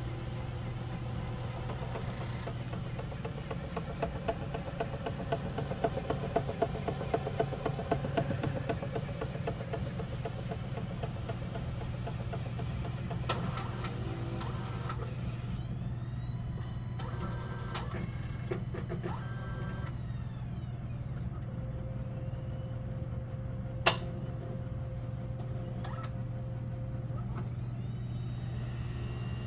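Eco Auto Smart machine running with a steady hum and a run of loud clanks, roughly two a second, from about four to nine seconds in, then one sharp click later on. The clanking appeared after its stage 3 pad was replaced with a new one and the solution diluted.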